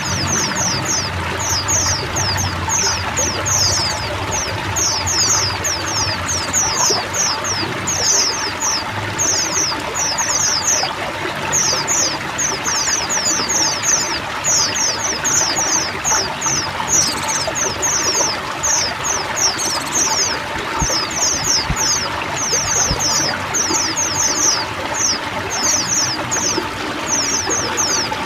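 A flock of white-eyes (pleci) chirping together in rapid clusters of short, falling high notes, over a steady sound of trickling, pouring water.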